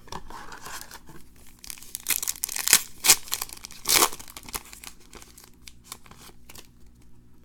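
A foil trading-card pack being torn open and its wrapper crinkled, with the cards rustling in hand; the loudest rips come about two to four seconds in.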